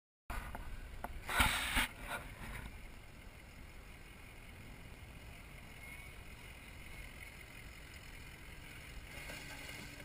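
Off-road race vehicle noise with wind: a steady low rumble and hiss, with a short loud rush of noise about a second and a half in.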